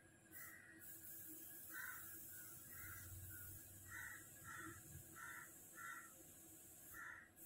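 A crow cawing faintly, about eight short caws in a row, over a steady low hiss.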